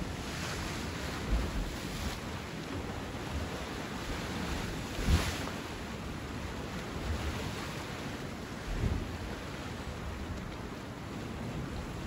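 Sea waves washing steadily on the shore, with wind buffeting the microphone in a few low gusts. The loudest gust comes about five seconds in.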